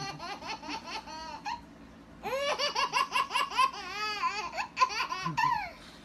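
A baby laughing in rapid, high-pitched peals, in two fits. The first breaks off about a second and a half in, and the second, longer fit stops about a second before the end.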